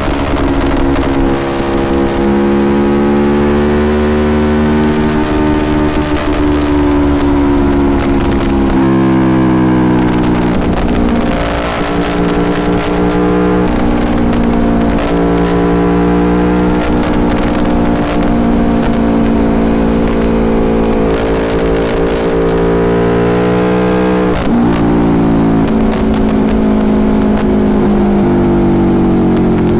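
Aprilia Tuono Factory motorcycle engine running under way, its pitch climbing and easing off with the throttle, with a quick drop and recovery in revs about three-quarters of the way through, like a gear change.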